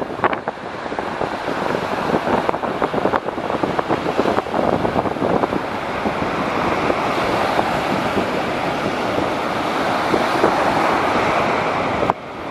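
Small waves breaking and washing up a sandy beach in a steady rush of surf, with wind buffeting the microphone.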